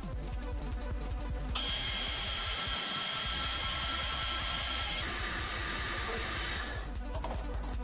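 Lathe machining noise: a steady hiss with a thin high whine over a low machine hum. The hiss sets in about a second and a half in and changes about five seconds in.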